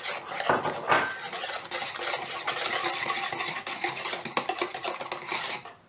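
Metal balloon whisk beating eggs into a wet yogurt-and-sugar batter in a plastic bowl: quick, continuous scraping and clicking strokes that stop just before the end.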